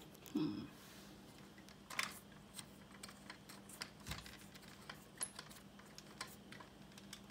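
Faint, irregular clicks and taps of fingers handling the end of an aluminium walker leg and its rubber tip, with a short low tone about half a second in.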